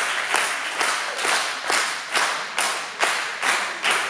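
Spectators clapping in unison in a steady rhythm, a little more than two claps a second, echoing in the hall: encouragement for a weightlifter setting up at the bar.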